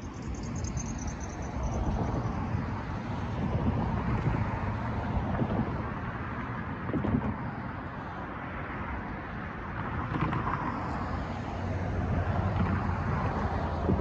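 Road traffic: cars driving across a railroad crossing, tyre and engine noise swelling and fading as each one passes.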